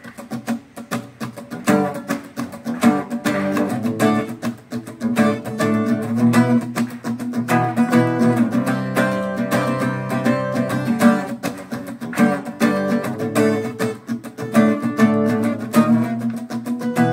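Acoustic guitar playing chords in a steady rhythm, solo and without voice: the instrumental intro of a song.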